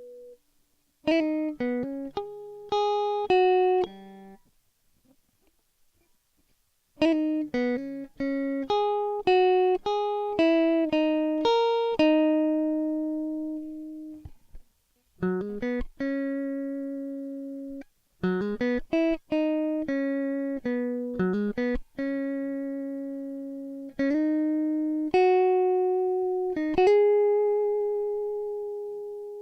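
Solo guitar music: single plucked notes and short arpeggios, each ringing out and decaying, with a pause of about two seconds early on.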